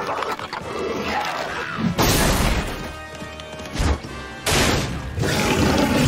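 Dramatic cartoon score under heavy fight sound effects. A loud crash comes about two seconds in, a short hit near four seconds, and another crash about half a second after it.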